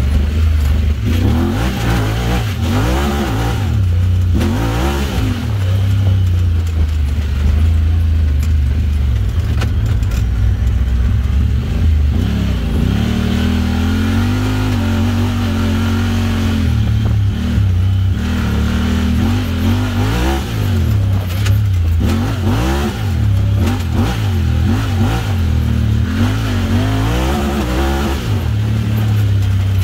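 Honda Talon X side-by-side's 999 cc parallel-twin engine running through an aftermarket Evo Performance exhaust while being driven on a trail. The revs rise and fall over and over, over a steady deep exhaust rumble.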